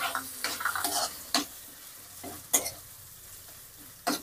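Chopped tomatoes sizzling in hot oil with fried onions in a kadai, stirred with a spatula that scrapes against the pan a few times. The sizzle fades over the few seconds.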